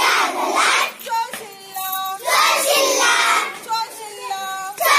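A group of young girls singing a Marathi rhyme together in chorus, loud passages of many voices alternating with short, clear sung lines from a single voice.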